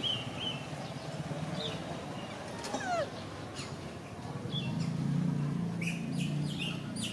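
Small birds chirping, short high chirps that come thicker in the second half, over a low steady hum.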